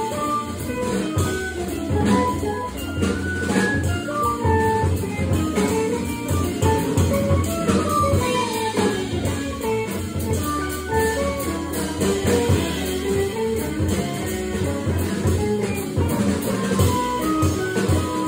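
Jazz trio of electric guitar, organ and drum kit playing, with a line of single notes over steady drums and a quick falling run of notes about halfway through.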